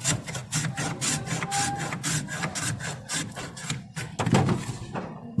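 Block of ice being shaved by hand on an ice planer, quick rasping scrapes at several strokes a second. A louder thud comes about four seconds in.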